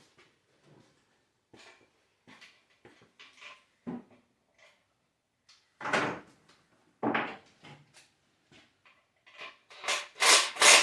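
Tools and parts being handled on a garage workbench: scattered light knocks and clicks, two heavier clunks about six and seven seconds in, and a run of loud clatters near the end.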